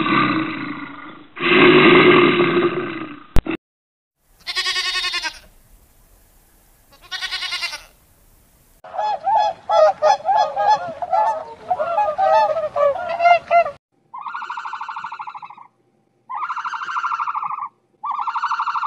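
A series of calls from several different animals in turn. First a rough, noisy call, then two short high cries. After these comes a run of quick quavering bird calls, and near the end three separate honks.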